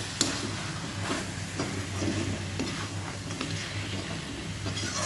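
Chicken pieces sizzling in a metal kadai over a steady hiss, with a perforated ladle stirring and scraping against the pan a few times.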